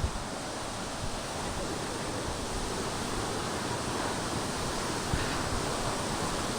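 Waterfall rushing steadily, with a few brief low thumps of wind on the microphone.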